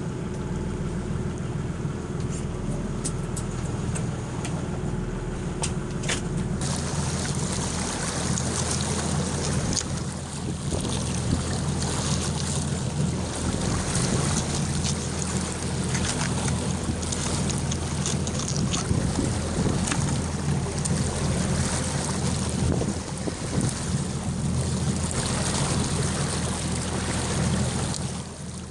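Boat motor running steadily, with wind and rushing water noise that gets louder about six seconds in.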